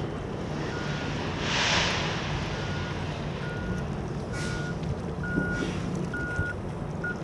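A vehicle reversing alarm beeping, one short single-pitched beep roughly once a second, over a low steady drone. A brief rush of noise, the loudest thing here, comes about a second and a half in.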